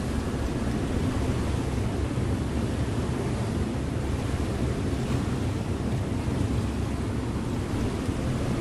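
River motor ship under way: a steady low engine drone mixed with the rush of water and wind.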